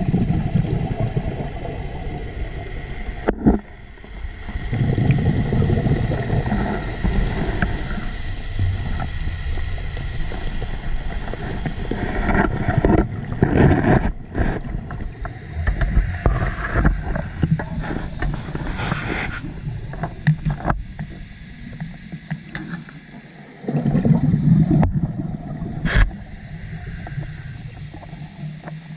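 Scuba diver breathing underwater through a regulator: rumbling bursts of exhaled bubbles a few seconds long with quieter spells between them, and a couple of sharp knocks.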